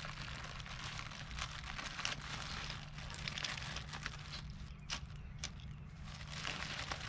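Packaging and parts being handled while unpacking a pressure washer: continuous rustling and crinkling with small clicks, and two sharper clicks about five seconds in.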